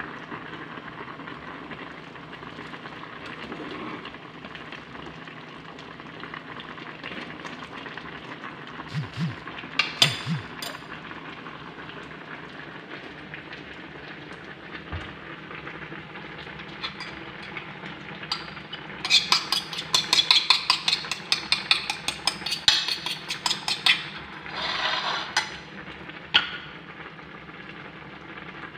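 Steady bubbling hiss of a pot of pasta at a rolling boil, with a couple of clinks about ten seconds in. Past the middle, a fork beats eggs in a ceramic plate for about five seconds, clicking rapidly against the plate.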